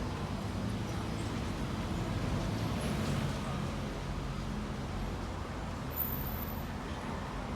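Steady low rumble of vehicle noise, even and unbroken.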